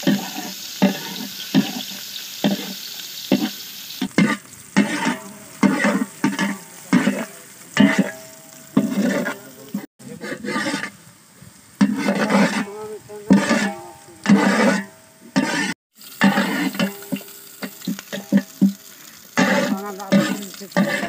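A flat metal spatula scraping and stirring sliced onions frying in oil in a large metal pot, in repeated strokes about one or two a second, over a sizzle of hot oil.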